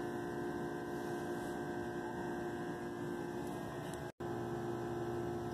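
Steady background hum made of several constant tones, broken by a brief dropout about four seconds in.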